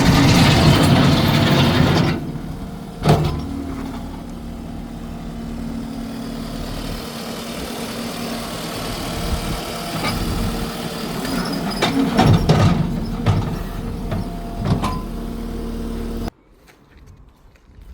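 Case SR220 skid steer's diesel engine running, loud for the first couple of seconds, then settling to a steady run with a few sharp clanks. It stops abruptly near the end.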